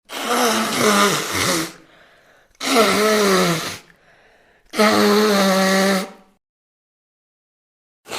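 Three nose blows, each a loud honking blast lasting a second or more with a pitched tone through it, separated by short pauses; a fourth begins right at the end.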